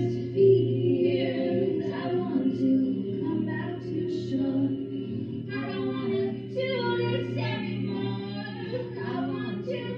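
Music: layered singing voices over steady held low notes, with a melody line moving above.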